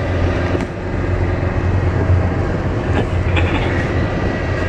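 Car driving on a sandy dirt track, heard from inside the cabin: steady engine and road drone with tyre noise and a few light knocks.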